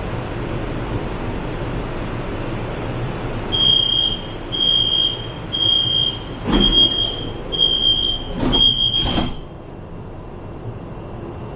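LRT train door-closing warning on a CSR Zhuzhou 'AMY' car: six high beeps about a second apart while the sliding doors close, with heavy thuds as the door panels shut.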